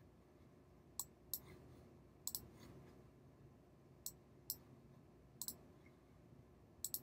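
Computer mouse buttons clicking about ten times at uneven intervals, several in quick pairs, over faint room hiss.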